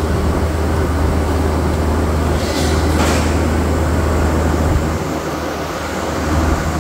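Loud, steady low hum and rumble of running mill machinery, with two short hisses about two and a half and three seconds in.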